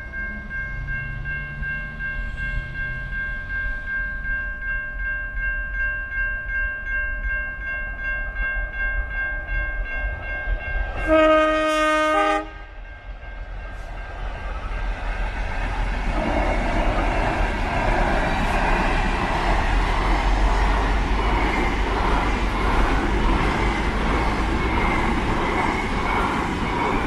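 Diesel-hauled container freight train sounding its horn once, a loud blast of about a second and a half about eleven seconds in, then the locomotives and container wagons running past with a steady rumble of engines and wheels that builds and stays loud.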